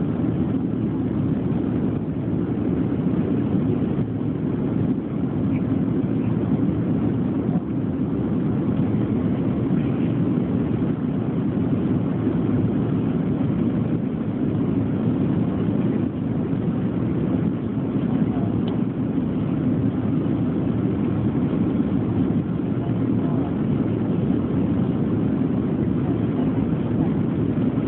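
Steady cabin noise of a Boeing 737 in flight, heard from a window seat: an even rumble of jet engines and rushing air.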